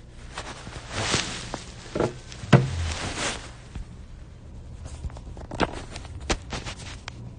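Rustling of bedding and a phone being handled, with a dull thump about two and a half seconds in and a few sharp clicks and knocks in the second half.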